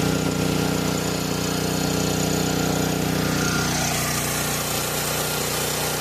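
Firman tri-fuel portable generator's engine running at a steady speed, started once the stuck micro switch on the controls was freed. The tone shifts slightly about halfway through.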